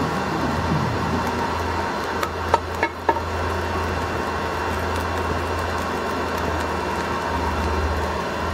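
Steady rushing hum of a running forge, with a few sharp metallic clinks about two to three seconds in.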